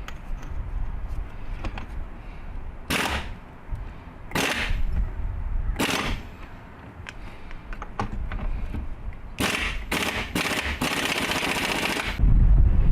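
Impact wrench hammering on a seized front-suspension ball joint in short rattling bursts of about half a second, then a longer burst of about two seconds. A loud low rumbling noise starts near the end.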